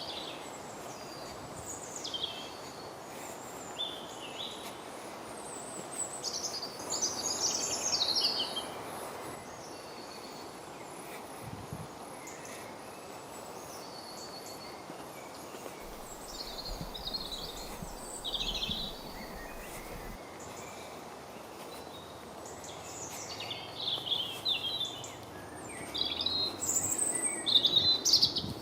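Woodland birdsong: several small birds singing short, quick phrases on and off, busiest about a quarter of the way in and again near the end, over a steady background hiss.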